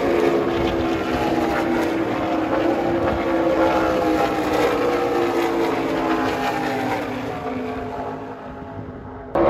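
Engines droning steadily, their several tones slowly dropping in pitch and fading away over the last couple of seconds.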